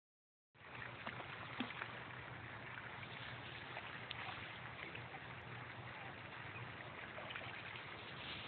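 Faint steady outdoor background noise, with a few small splashes and ticks as a cocker spaniel wades in shallow pond water.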